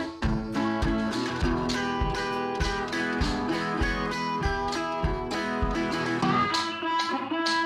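Background music: guitar-led instrumental with plucked strings over a steady beat.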